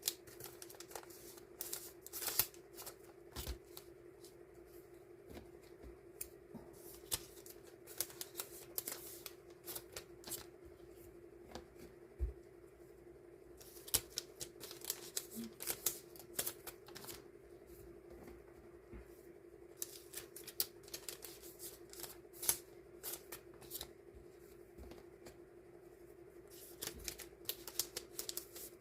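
Die-cut sticker sheets being handled and sorted by hand: irregular quick clicks, taps and rustles of paper and plastic, in clusters with short pauses, over a steady low hum.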